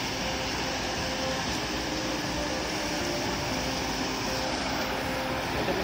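Fast-flowing muddy floodwater rushing past, a steady, even rush of water.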